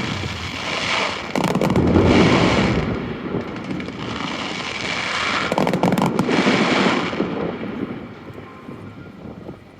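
Fireworks bursting with crackling, in two waves: the first peaks about two seconds in, the second about six seconds in, and then it dies away.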